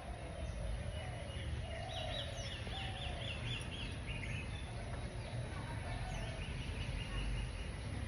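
Birds calling over a steady low rumble: short lower calls scattered through, and a quick run of about eight repeated high notes around the middle.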